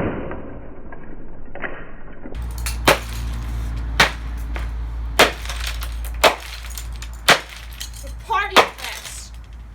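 A plastic Dreamsky DS206 alarm clock radio being smashed with hard blows, about one a second, each with a sharp crack of breaking plastic.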